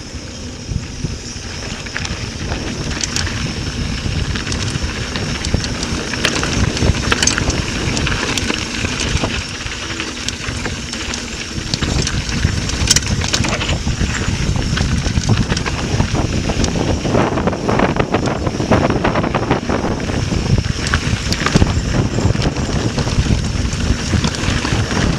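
Mountain bike riding fast down a dirt and gravel trail: wind buffeting the handlebar-mounted microphone over the crunch of knobby tyres, with frequent clicks and rattles from the bike over bumps, busier in the second half.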